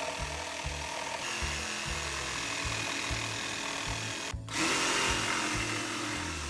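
An electric drill or similar power tool running into plywood under background music with a steady beat. About four and a half seconds in the sound cuts out for a moment and comes back louder.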